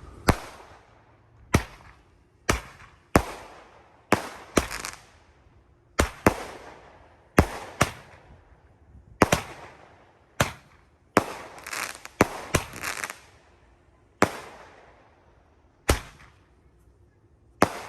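Two Black Thunder Roman candles firing at the same time: a string of about twenty sharp pops, spaced irregularly from a fraction of a second to two seconds apart, each trailing off in a short hiss.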